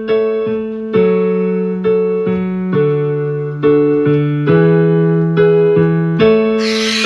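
Background piano music: a simple melody of evenly struck keyboard notes, about two a second, each note fading before the next. Near the end a loud, harsh high-pitched noise breaks in over the music.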